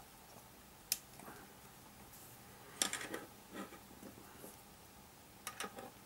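Banana plugs on multimeter test leads being pulled out of and pushed into the sockets of a resistor box, with the leads rattling: a sharp click about a second in, a cluster of small clicks and knocks around three seconds in, and a few more near the end.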